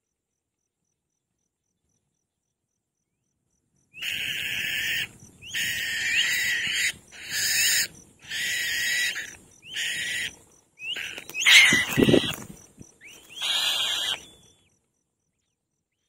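Black-winged kites at the nest giving a run of about seven harsh, wheezy screeching calls, each up to about a second long, starting about four seconds in. The loudest call comes a little after the middle, together with a low thud.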